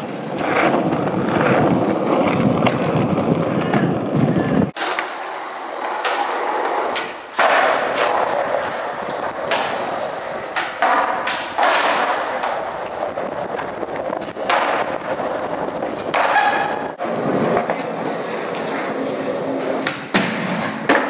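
Skateboard wheels rolling on asphalt and concrete, with several sharp clacks of the board hitting the ground.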